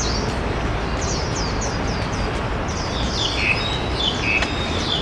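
Small birds chirping in the trees, a quick run of short calls that slide downward in pitch, with a more varied phrase about three seconds in. Under them is a steady background hum of city noise.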